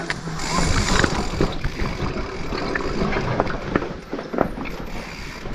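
Mountain bike riding down a rocky trail: a dense run of knocks and rattles as the tyres and frame clatter over loose stones, over a steady rush of riding noise.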